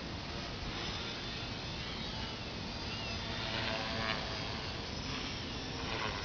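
Small tricopter's three electric motors and propellers buzzing, the whine gliding up and down as the throttle changes, over a heavy rumble of wind on the microphone.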